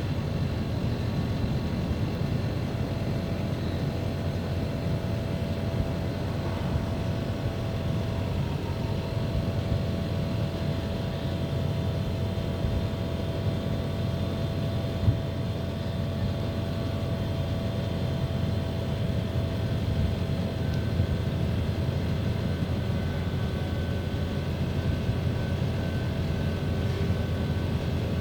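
Split air conditioner running with a steady low rumble and hum, with thin steady whining tones over it: the abnormal noise and vibration of a faulty unit. A single sharp knock about halfway through.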